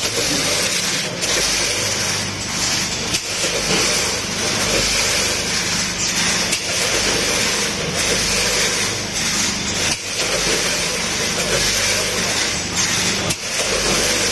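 Metal screws clattering and rattling as they pour through the stainless-steel feed pans and weigh hoppers of a multihead weighing scale, with many irregular small knocks over a steady machine hum.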